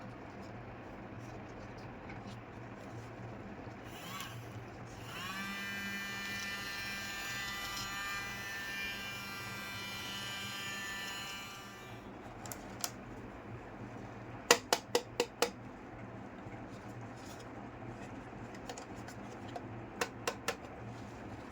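A small battery-powered toy motor whirs up to speed and buzzes steadily for about seven seconds, then stops. It is followed by a quick run of five sharp clicks and, near the end, three more clicks.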